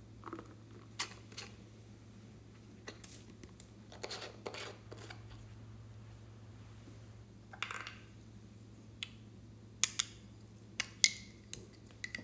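Small plastic containers being handled and opened, with scattered sharp plastic clicks and taps of caps and lids and short rustles as the contents are tipped out. A low steady hum runs underneath.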